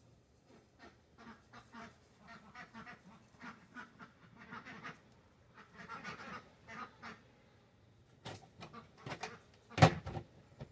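Ducks quacking in many short, repeated calls, with one sharp knock near the end that is the loudest sound.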